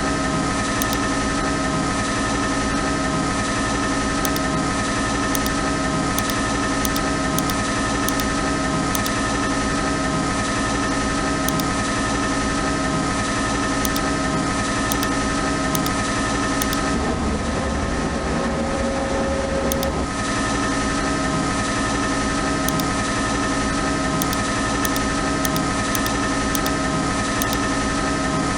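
CNC lathe running steadily, with a low pulse repeating about once a second under a constant machine whine. Its tone shifts for a few seconds about two-thirds of the way through.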